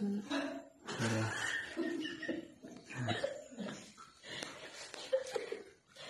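People laughing and talking inside a cave, in short bursts of voice.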